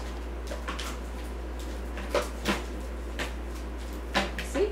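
Plastic baby bottles and parts clicking and knocking as they are set onto the plastic rack of a Tommee Tippee microwave steriliser: several light knocks, a pair about two seconds in and another pair near the end, over a steady low hum.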